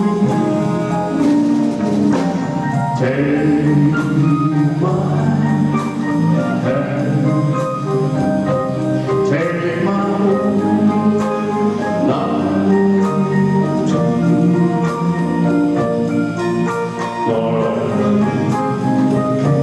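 A live rock and roll band playing, with held chords and a steady drum beat.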